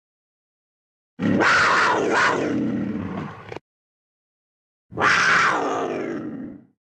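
Two animal calls, each about two seconds long with a silent gap between them; each call fades away as it falls in pitch.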